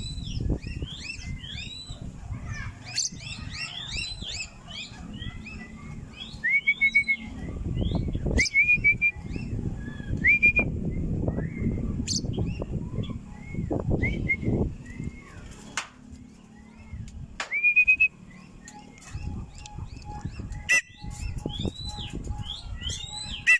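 Cockatiels calling in flight: many short, arched whistled chirps, some rising, repeated throughout over an uneven low rumble.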